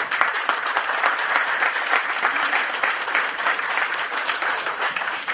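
Audience applauding: many hands clapping at once, starting abruptly and holding steady.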